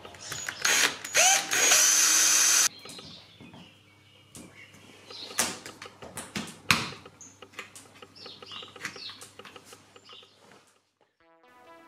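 Cordless drill boring through a fiberglass panel in a few short bursts and then a steady run, cutting off abruptly after about two and a half seconds. Scattered small clicks and knocks follow as parts are handled by hand.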